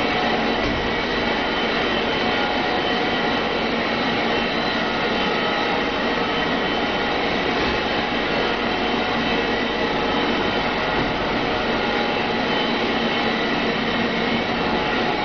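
Steady drone of processing-plant machinery, an even rushing noise with several constant whining tones on top that does not change.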